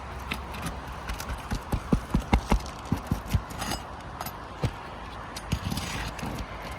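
Roof snake working a roofing nail out from under an asphalt shingle: a quick run of sharp knocks and clacks about two seconds in, then a few more spaced out.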